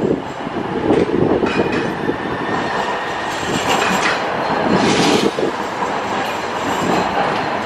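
Light-rail train passing close by along the street, a steady loud noise of wheels running on the rails.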